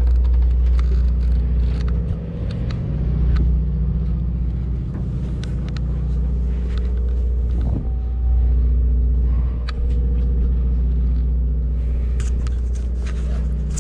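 Steady low drone of a sportfishing boat's diesel engine running, with a few light clicks and knocks over it.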